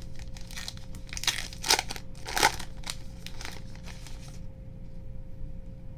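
Foil wrapper of a 2018 Panini Diamond Kings baseball card pack crinkling and crackling as it is opened and crumpled, with two louder crackles around two seconds in; it stops a little after four seconds in.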